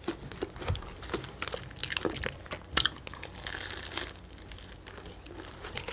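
Biting into and chewing a pastry, with scattered crunchy crackles and a brief rustle of wrapping a little past halfway.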